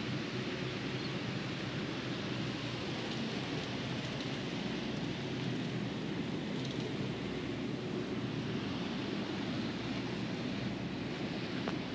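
Steady outdoor background noise, an even hiss with a faint low hum under it.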